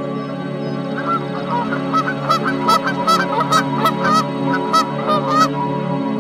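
Canada geese honking in a rapid series of short calls, starting about a second in and stopping after about five seconds, over a steady background music drone.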